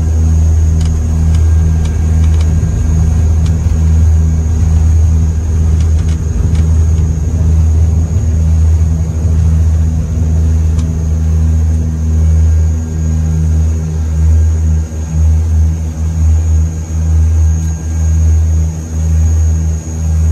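Turboprop airliner's engines and propellers at take-off power, heard inside the cockpit as a loud, steady, deep drone with a thin high whine, through the take-off roll and lift-off. A few light rattles come early on the runway, and in the second half the drone begins to waver in loudness.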